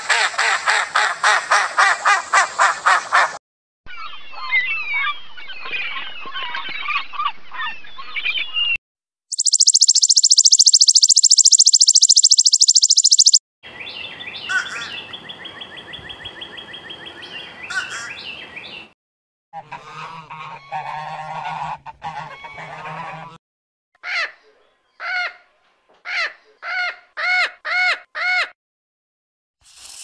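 A run of different animal and bird calls, cut one after another in sections a few seconds long. The sections are a fast run of pulsed calls, a stretch of chirping, a steady high buzz, and near the end a series of short repeated calls that come closer together.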